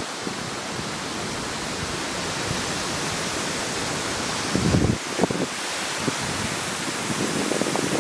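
Steady hiss of a light breeze, with a short, stronger low buffet of wind on the microphone just past halfway.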